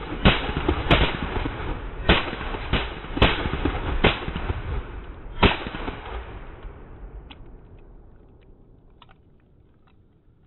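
12-gauge Beretta 1301 semi-automatic shotgun fired in rapid succession: about seven shots in the first five and a half seconds, each followed by a rolling echo. The echo then dies away, with a few faint clicks near the end.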